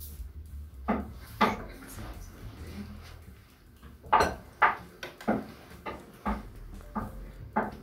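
Kitchenware clattering: about ten short, sharp knocks of utensils and dishes, two about a second in and then a quicker run of them from about four seconds in.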